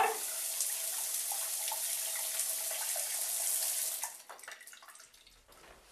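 Shower water spraying steadily, stopping about four seconds in.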